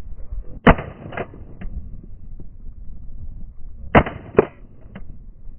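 Shotgun blasts at ducks flying overhead: two shots about half a second apart about a second in, then two more about three seconds later.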